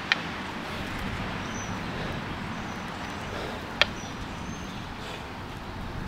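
Steady background noise with two sharp clicks about four seconds apart, and a few faint high chirps.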